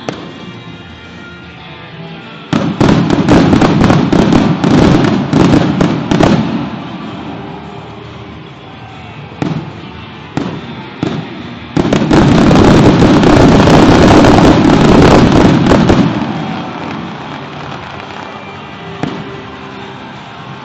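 Fireworks exploding: a dense barrage of rapid bangs, then a few single reports, then a second long barrage, with music playing underneath.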